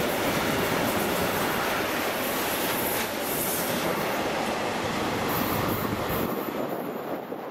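A freight train of covered hopper wagons rolling past with a steady clatter of wheels on rail. It thins out and fades near the end as the last wagons pull away.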